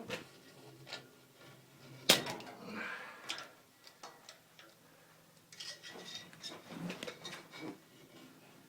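Scattered clicks and light knocks of a small flathead screwdriver and a urethane bandsaw tire being worked onto a cast iron bandsaw wheel. One sharp knock about two seconds in is the loudest, and a run of smaller clicks and rubbing sounds follows later on.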